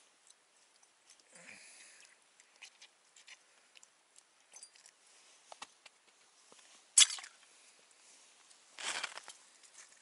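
Small handling noises at an ice-fishing hole: scattered faint clicks, scrapes and rustles of tackle and winter clothing. One sharp click comes about seven seconds in, and a short crunchy rustle near the end as the angler leans down toward the hole.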